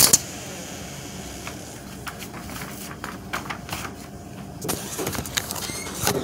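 Sheets of paper being handled and lifted on a desk, rustling, with a sharp knock right at the start and a few scattered taps.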